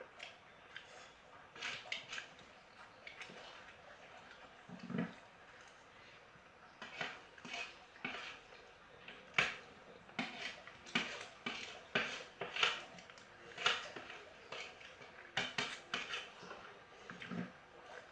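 Eating sounds close to the microphone: irregular light clinks and scrapes against a plate, coming more often in the second half.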